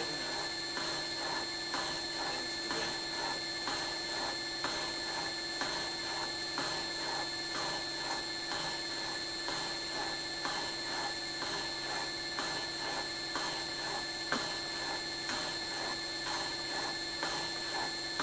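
Bridgeport mill slotting head running, its ram stroking up and down at a steady pace, a little under twice a second, with a knock on each stroke as the cutter takes a cut slotting a keyway in a metal motor coupler. The mill motor hums steadily underneath.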